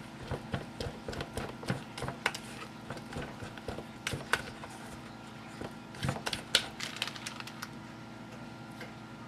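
Spatula scraping and knocking against a stainless steel mixing bowl while stirring thick matcha cake batter: irregular clicks and scrapes that die down near the end, over a steady low hum.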